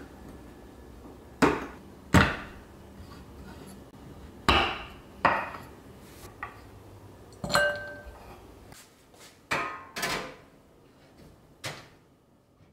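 Kitchen knife chopping a bar of chocolate on a wooden cutting board: about nine separate sharp chops, several in quick pairs.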